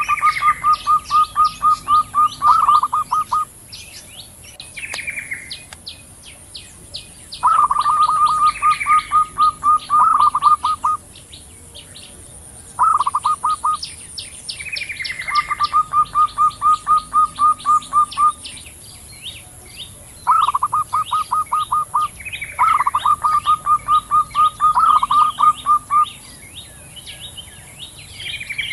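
Zebra doves (perkutut), female and male, calling back and forth in rapid series of short, evenly spaced notes. Each run lasts one to four seconds and the runs follow one another every few seconds. Smaller birds chirp faintly behind them over a steady high whine.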